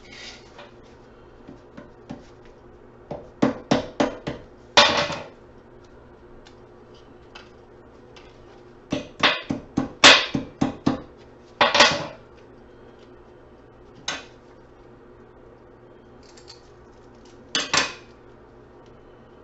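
Metal clinking and knocking on a workbench as small transformers are taken apart: hand tools and steel core pieces striking one another. The strokes come in quick runs of several, with a few single knocks between.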